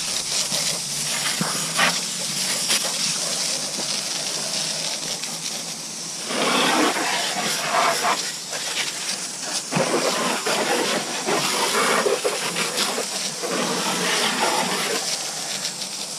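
A 2200 PSI pressure washer's water jet spraying mud off an ATV's wheels: a steady hiss that swells louder and fuller about six seconds in and again through the second half.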